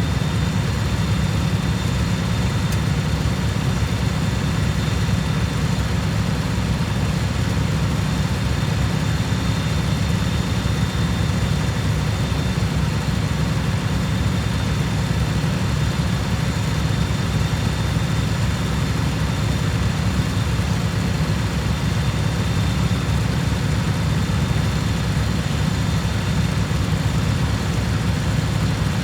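Cub Cadet lawn tractor's engine running at a steady speed, a constant low drone with no change in pitch or level.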